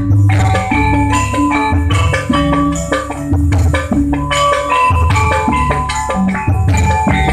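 Music played loud through a PA sound system under test: a melody of pitched notes over drums and a heavy, steady bass line.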